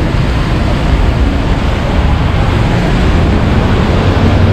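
Loud, steady outdoor city street noise, a rumble of traffic mixed with wind buffeting the microphone.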